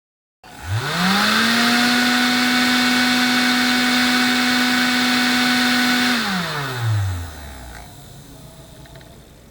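Small electric fan motor of a mini room heater/air conditioner spinning up quickly to a steady hum with rushing air. It is switched off about six seconds in and winds down, falling in pitch.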